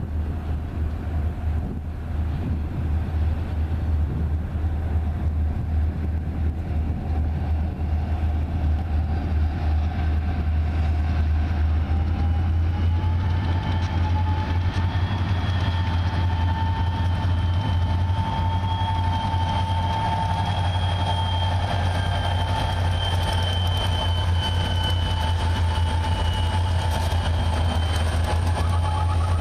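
Freight train led by diesel locomotives going by, with a heavy low rumble throughout. About halfway through, a high, steady whine joins in and holds to the end.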